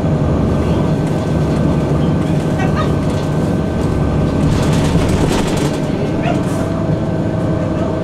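Cabin ride noise of a 2002 Blue Bird CS transit bus with its Cummins ISC inline-six diesel engine: a steady rumble of engine and road with a thin steady whine over it, and the body rattling more about halfway through.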